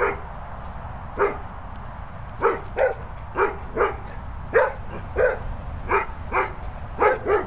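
Dog barking in repeated single barks, about a dozen at uneven spacing, one to two a second.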